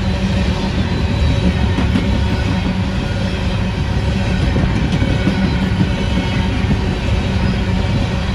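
Freight train of open-top hopper cars rolling past: a loud, steady rumble of steel wheels on the rails.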